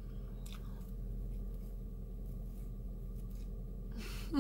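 Faint chewing and mouth sounds, with small soft clicks, over a steady low hum inside a car. A brief voiced sound comes right at the end.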